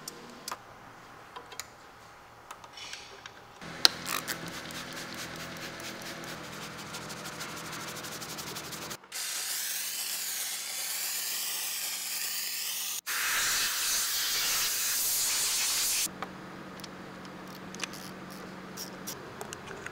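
A steam cleaner hissing loudly as it sprays the engine cover, for about seven seconds in the middle, with a brief break partway through. Before it comes a run of rapid light clicking, and after it a few scattered clicks.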